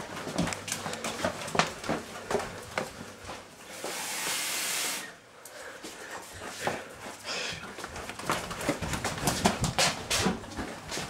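Hurried footsteps and knocks of people moving through a house, with a short rush of running water from a kitchen tap, about a second and a half long, about four seconds in as a plastic cup is filled.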